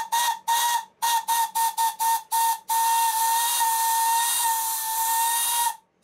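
Small 5/8-inch brass model steam whistle fitted with a resonance chamber, blown with compressed air from an airline that isn't sealing well. It gives a run of about ten short toots, then one long blast of about three seconds, on a single steady note with a breathy hiss.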